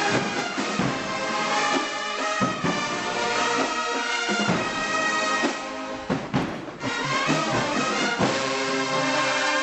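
Marching band brass section playing a slow ballad in full, sustained chords, with trumpets and mellophones carrying the melody together. It eases off briefly about two-thirds of the way through, then swells back.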